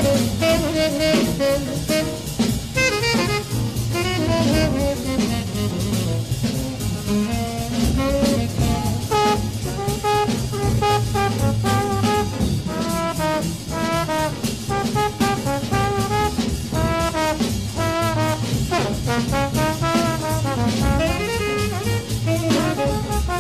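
Background music: 1950s jazz, with saxophone and brass playing the melody over a drum kit keeping a steady beat.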